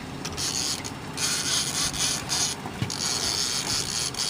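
Fishing reel being cranked in stretches with short pauses, a rough mechanical whirring as line is wound back in on a hooked fish.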